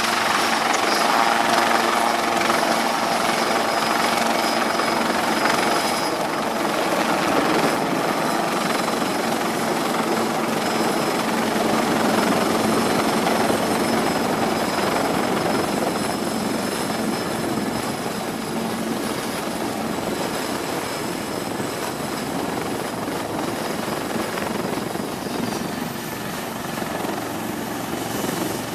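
Helicopter running: steady engine and rotor noise with a high turbine whine. The whine changes and fades near the end.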